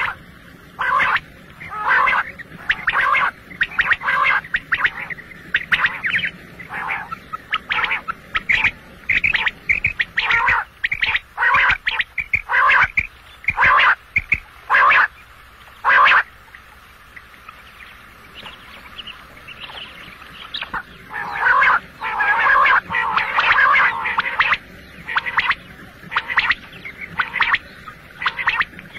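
Quail calling: a long run of short, sharp calls given in quick clusters, over and over, with a lull a little past the middle before the calls come dense again.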